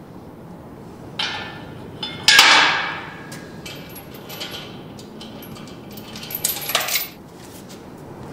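Metal clanks and clinks from hand work in a van's engine bay: a sharp clank about a second in, the loudest and longest-ringing one about two seconds in, and a few lighter clinks later.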